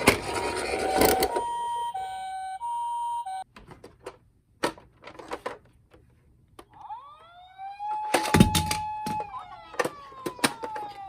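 Electronic sirens of toy emergency vehicles. First comes a rolling noise, then a two-tone hi-lo siren alternating for about two seconds, the pee-po pattern of a Japanese ambulance. After a few clicks and knocks, a wailing siren of the Japanese police-car type rises, holds steady and glides down, with a loud knock in the middle.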